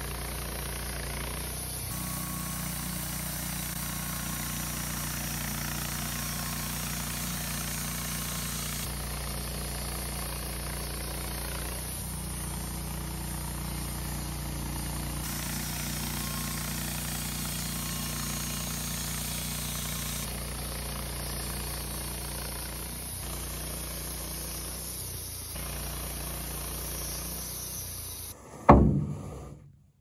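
Woodmizer LT15 sawmill's engine running steadily, its tone changing abruptly several times. Near the end comes a single loud knock.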